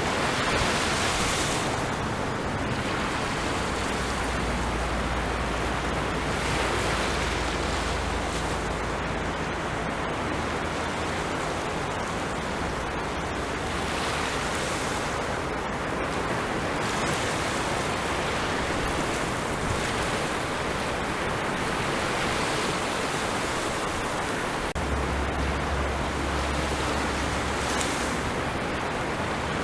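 Sea waves breaking and washing on a shore in a steady rushing wash, swelling gently every few seconds.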